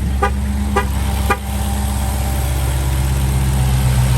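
Supercharged 6.2-litre HEMI V8 of a Dodge Hellcat Redeye idling steadily just after an oil change. Three short beeps about half a second apart sound in the first second and a half.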